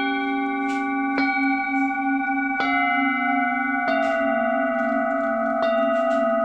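A set of full moon singing bowls, 7 to 9 inches across, struck one after another: four strikes about a second and a half apart. Each adds a new ringing tone over the ones still sounding from before, which carry on with a slow wavering beat underneath.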